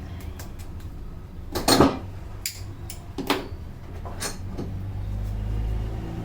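Sharp percussive hand strikes of a head massage: about five quick impacts, the loudest and longest about a second and a half in, over a steady low rumble that swells near the end.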